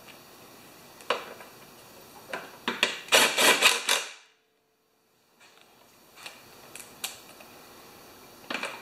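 Cordless power driver running a bolt into a lawn mower's plastic engine cover: a loud rattling burst about three seconds in that stops abruptly after about a second, with a few lighter clicks of the tool and socket on the bolt before and after.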